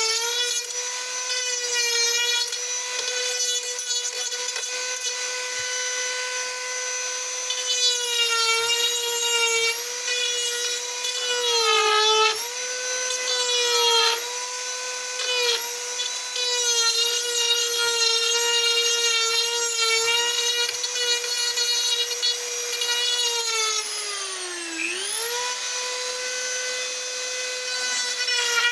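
High-speed rotary carving tool running with a steady high whine while cutting wood, its pitch sagging each time the bit is pressed into the work, a few times and most deeply near the end.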